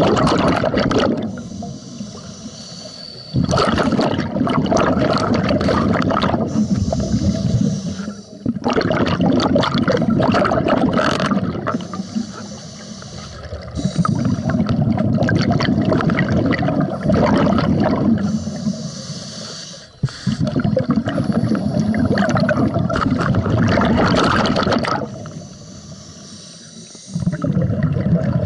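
Scuba diver breathing through a regulator underwater: long bubbling exhalations of several seconds each, broken by shorter, quieter hissing breaths in.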